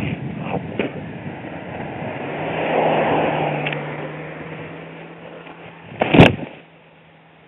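Wind and road noise from a moving bicycle as a car passes, its noise swelling about three seconds in and fading. Just after six seconds comes one loud crash as the bike leaves the road and lands in roadside brush.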